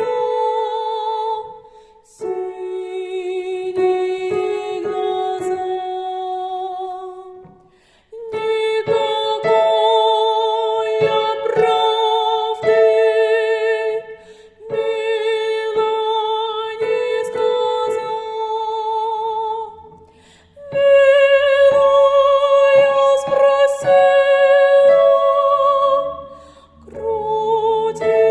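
A slow, tender melody in phrases of held notes with vibrato, each phrase ending in a short pause before the next begins.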